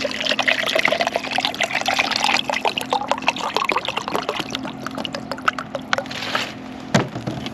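Water being poured into a drink shaker, a steady splashing pour that stops about six seconds in, followed by a single sharp knock.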